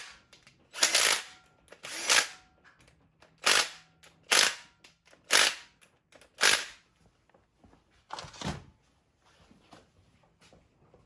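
A handheld power tool run in about seven short bursts, driving bolts on the engine's cam and timing gear. The bursts come roughly once a second for the first several seconds, then stop near the end.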